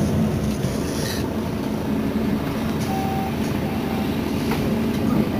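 Mercedes-Benz Citaro city bus engine idling at a stop, a steady low rumble. Two short faint beeps sound about three seconds in.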